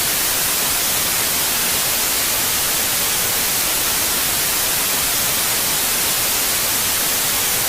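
Loud, even static like white noise, with no tone or voice in it.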